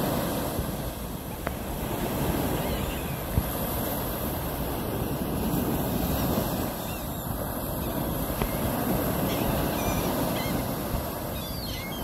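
Small ocean waves breaking and washing up a sandy beach in a steady, slowly swelling rush, with wind on the microphone. A few faint gull calls come through now and then.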